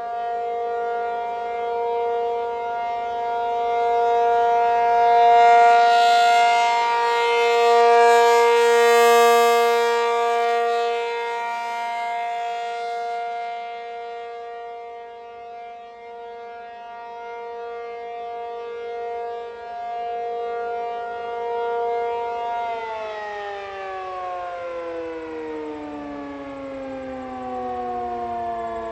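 ACA P-50 outdoor warning siren sounding the steady Alert tone, swelling and fading in loudness about every three and a half seconds as it rotates. Near the end it shuts off and its pitch slides steadily down as it winds down.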